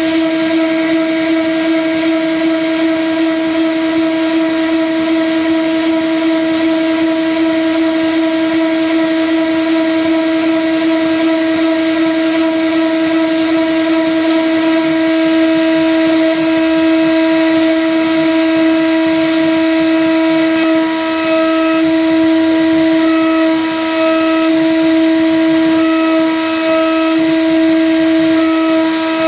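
Milling machine's spindle and end mill cutting metal, running with a steady high-pitched whine. From about two-thirds of the way in, a second, higher tone comes and goes in short stretches as the cut goes on.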